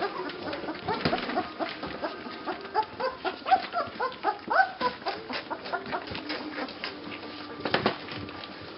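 Two-week-old Saint Bernard puppies squeaking and whimpering while they nurse: many short cries that rise in pitch, crowded together in the middle, with small smacking clicks of suckling between them.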